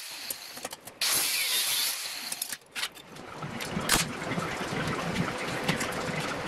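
An angle grinder cuts steel in a short burst. From about three seconds in, a MIG welder crackles steadily as it welds the cut-down headlight bucket back together.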